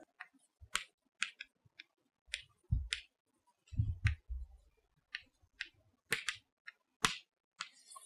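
Chalk on a blackboard as words are written: a string of short, irregular taps and scratchy clicks, with a few soft low thumps about three to four seconds in.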